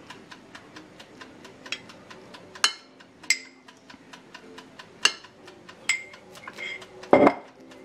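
A metal spoon clinking against a glass jar as sauce is scooped out and dabbed onto a plate: a handful of sharp clinks, some with a brief glassy ring, and a heavier knock near the end.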